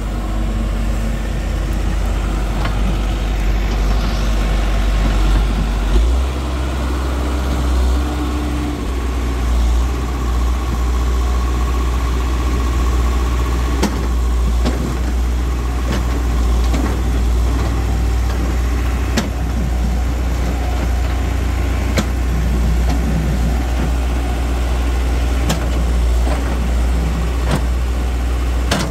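John Deere backhoe loader's diesel engine running steadily, its note changing about six seconds in. The rear bucket knocks sharply against the broken asphalt several times while it digs at the road surface.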